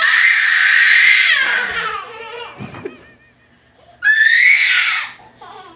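A small child giving high-pitched, pterodactyl-like screeches: one long screech that wavers and trails off, then a second shorter one about four seconds in.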